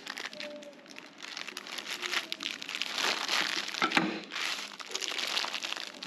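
Thin plastic sheet crinkling and rustling as a kebab paratha roll is wrapped up tightly in it by hand, loudest in the second half, with a sharp click about four seconds in.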